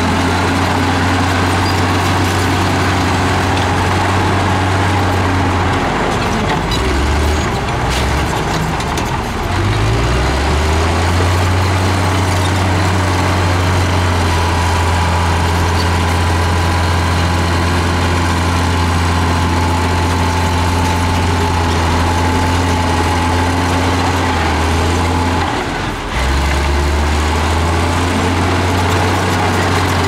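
Komatsu crawler bulldozer's diesel engine running under load as it pushes soil. It is a steady low drone that shifts pitch for a few seconds early on and dips briefly near the end, then picks back up.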